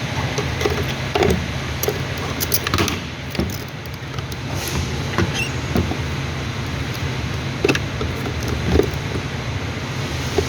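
A steady low mechanical hum with scattered sharp clicks and light knocks from parts and tools being handled.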